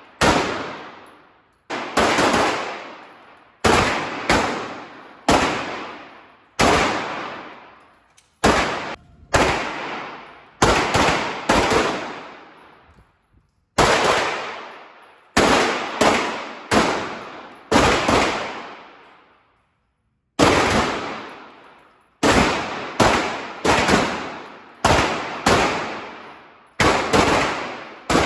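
Pistol shots fired one at a time at an irregular pace, about thirty in all, often in quick strings of two to five, each with an echoing tail.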